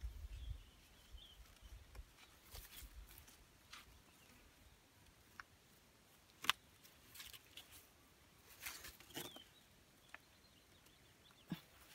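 Faint rustling and scattered clicks of hands winding and tightening a cord lashing around a wooden post, with one sharp click about halfway through and a soft knock near the end.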